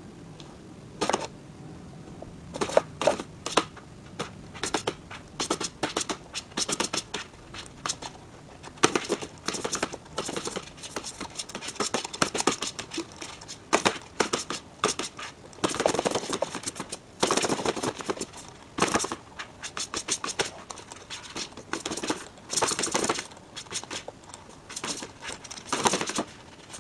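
A cat's paws batting and scratching at a sheet of paper on a wooden floor, with a thin stick drawn across the paper: repeated quick, irregular scratching and rustling strokes, often in rapid clusters.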